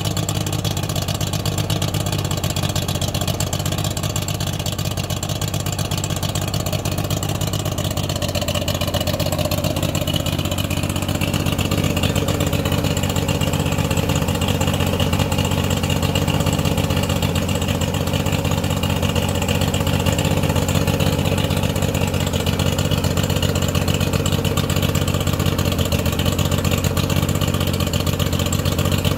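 2001 Mercury 50 hp two-stroke outboard engine idling steadily on a test stand, with water splashing from its lower unit as it runs on a hose water supply.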